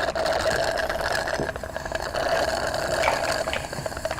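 Diet Pepsi poured into a glass full of ice: a steady pouring hiss with fizzing crackle, dying away near the end.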